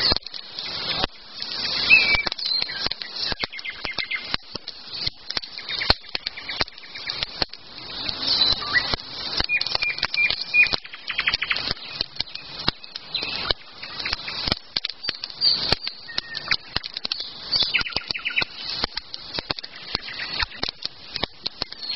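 Small birds chirping in short high trills, over a dense run of irregular crackling clicks and rustles.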